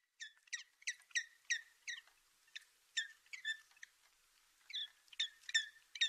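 Woodpecker calling: a run of short, sharp, squeaky notes, each dropping in pitch, about two to three a second, with a pause of about a second midway.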